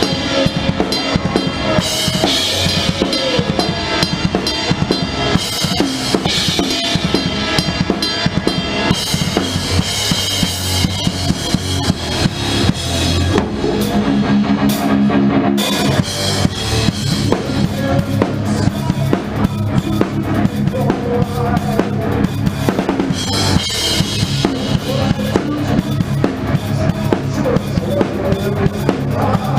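Rock drum kit played live in a heavy metal song: a driving beat of bass drum, snare and cymbals over the band's steady low bass and guitar notes. About halfway through, the cymbals and high end drop out for a second or two, then the full beat comes back.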